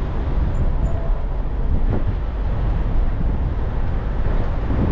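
Steady low rumble of a car rolling slowly across a parking lot, with wind on the microphone.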